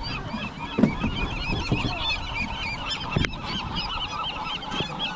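A flock of seabirds calling nonstop, many short overlapping squawks at once. A few deeper calls and one sharp knock stand out briefly about three seconds in.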